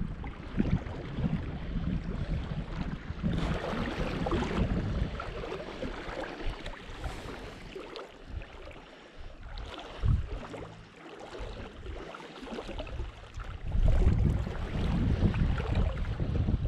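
Gusty wind buffeting the microphone, with water sloshing around the legs of someone wading a river. The gusts ease off in the middle and pick up again near the end.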